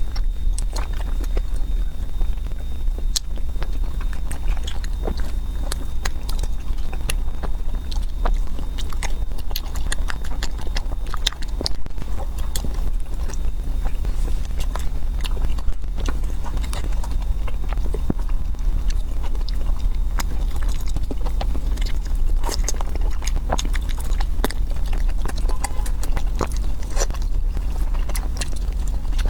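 Close-miked eating: chewing and biting, with many small sharp clicks and smacks throughout, over a steady low hum.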